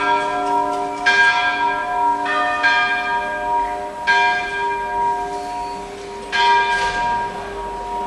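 Church bells ringing in the bell tower: several bells of different pitch struck at uneven intervals, each strike leaving a long, overlapping hum.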